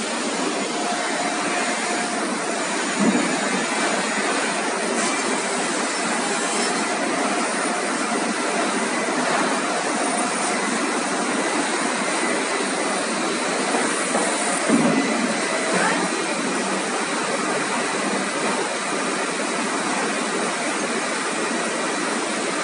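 Veneer glue spreader and surrounding plywood-plant machinery running: a steady mechanical din with a faint high whine over it, and two brief louder bumps, one about three seconds in and one around the middle.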